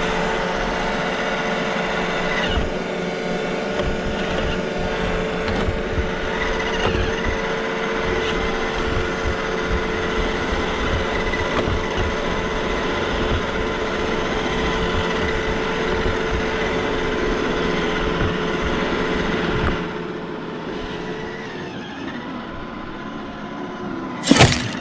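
iRobot Roomba i7 robot vacuum running close up, heard from a camera riding on top of it: a steady motor and brush whine with many small knocks and rattles from the body. About 20 seconds in the hum drops and changes, and near the end there is one sharp, loud knock.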